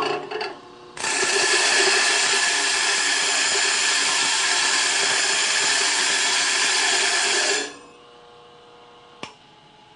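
A star-wheel dresser is pressed against a spinning bench grinder stone, giving a loud, harsh grinding rasp that starts about a second in and stops after about seven seconds. Its steel star wheels are breaking up the stone's surface to clear out embedded aluminum. Afterwards the grinder keeps running quietly, with a single click near the end.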